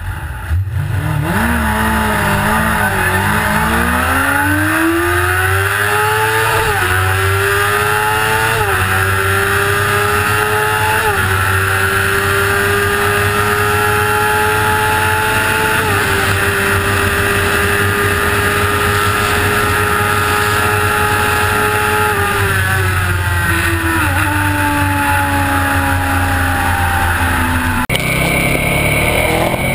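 Suzuki GSX-R sportbike's inline-four engine accelerating hard from low revs, its pitch climbing through several gear changes, then holding high and steady at top speed under heavy wind rush, and falling away as the throttle eases off. Near the end the sound cuts abruptly to a different motorcycle, a KTM, running at lower revs.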